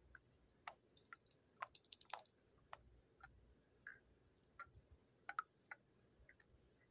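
Near silence broken by faint, irregular clicks and taps, with a quick flurry of them about two seconds in and a few short faint chirp-like blips.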